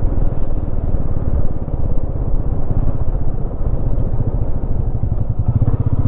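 Motorcycle engine running while under way, a rapid, even pulsing; about five and a half seconds in, a steadier, deeper engine note comes in.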